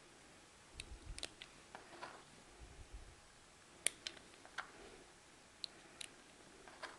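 Scattered faint metallic clicks, about a dozen, irregularly spaced, with one sharper click a little under four seconds in: 6 mm Flobert blanks being handled and loaded into the cylinder of a Röhm RG 56 signal revolver.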